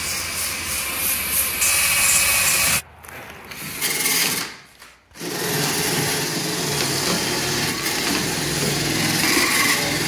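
Cordless power tool grinding Bondo body filler off a truck cab's windshield pillar, cutting out about three seconds in. After a short lull a power tool runs steadily again.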